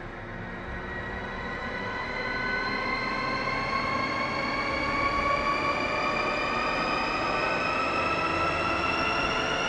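Cinematic riser sound effect: several high, screeching tones glide slowly upward together over a noisy rumble, growing louder over the first few seconds and then holding.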